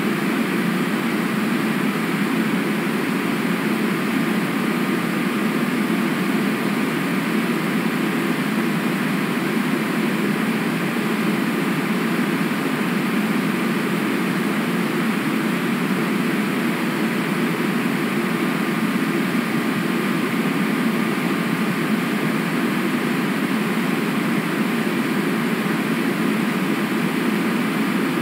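Steady rushing of river water, an even, unbroken noise with no separate events in it.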